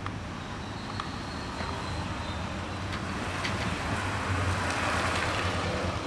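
Toy remote-control car's electric motor running as its rubber tyres and cardboard roller drum roll over loose gravel, getting louder over the second half.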